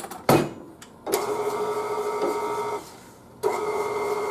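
A couple of sharp knocks, then a KitchenAid tilt-head stand mixer's motor starts about a second in and runs with a steady hum as its flat beater mixes an egg into brownie batter. It stops briefly near the three-second mark and starts again.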